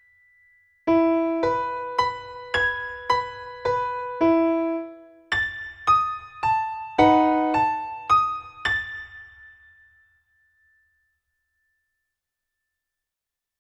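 A Mini Grand virtual piano plays back a notated solo piano piece: a brisk phrase of chords and quick up-and-down runs. It starts about a second in, the last note rings out and fades about ten seconds in, and the rest is silence.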